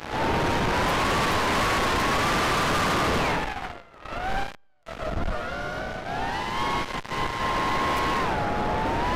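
Cobra 2206 2100kv brushless motors and three-blade props of a 4-inch FPV racing quad, heard from its onboard camera as a high whine over wind noise. The pitch rises and falls with the throttle. About four seconds in, the throttle drops away and the sound cuts out for a moment before it whines back up.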